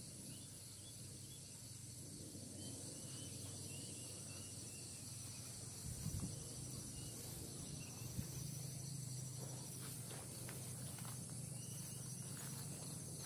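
Faint, steady high-pitched chirring of insects over a low steady rumble. Footsteps crunch on a stony path near the end.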